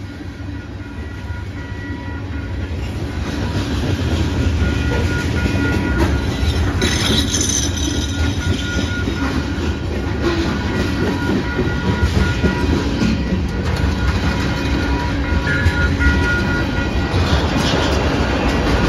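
Freight cars of a Norfolk Southern train rolling past close by: a steady heavy rumble of steel wheels on rail with clacking over the rail joints, growing louder over the first few seconds.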